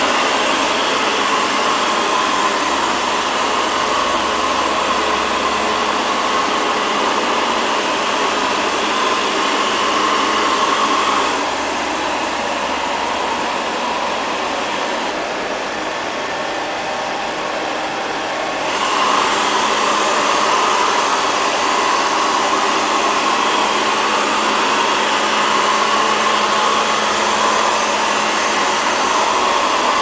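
ILIFE LL-306 (X500) robot vacuum cleaner running on a tile floor: a steady whir of its suction fan and brushes, turning quieter and duller for about seven seconds in the middle.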